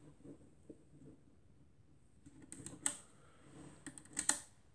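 Compur leaf shutter on the KW Etui folding camera worked on its T (time, 'pause double') setting, a few faint mechanical clicks from the release and shutter blades. The shutter opens with one press and stays open, and the loudest clicks come about three seconds in and again just after four seconds.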